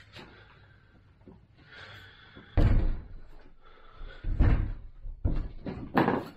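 A handful of heavy clunks and knocks as metal scooter parts are handled, loudest about two and a half seconds in, with more near the end.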